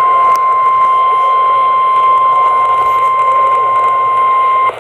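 NOAA Weather Radio warning alarm tone: a single loud, steady 1050 Hz tone over radio hiss that cuts off sharply near the end. The tone signals that a warning broadcast, here a severe thunderstorm warning, is about to follow.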